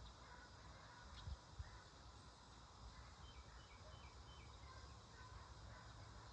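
Faint distant birds chirping, with a run of about half a dozen short high notes in the middle, over a low steady rumble.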